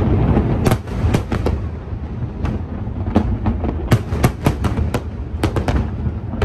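Fireworks going off: a deep rumbling boom at the start, then many sharp cracks and pops in quick, irregular clusters.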